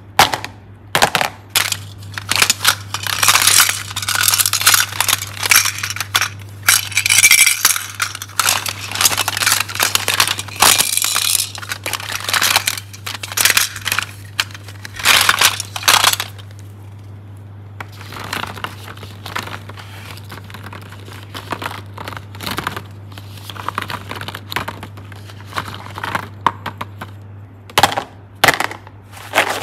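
Hard plastic toy containers clicking, clattering and rattling against one another as they are picked up and rummaged through. The handling is dense for the first half, quieter after that, with a few sharp clacks near the end, over a steady low hum.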